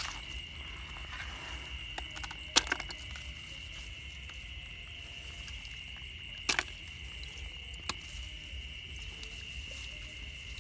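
Night insects, crickets or katydids, giving a steady high-pitched drone, broken by three sharp clicks from hands working in the grass and shallow water.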